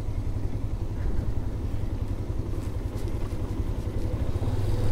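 Yamaha FZ motorcycle's single-cylinder engine running at a low, steady road speed on a rough gravel hill road, under a constant low rumble of road and wind.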